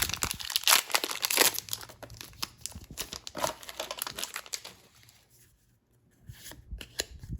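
Trading card booster pack wrapper crinkling and tearing as it is opened and the cards are pulled out. The rustling is dense for about five seconds, stops briefly, then a few more crinkles come near the end.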